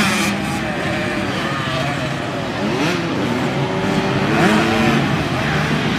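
Small 65 cc two-stroke motocross bike engines running, with a steady engine hum and the pitch rising and falling as a rider revs up and backs off the throttle, most clearly about three and four and a half seconds in.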